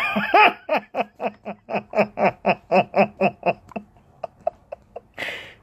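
A man laughing: a long run of rapid 'ha' pulses, about six a second, that trails off after about four seconds and ends with a breath.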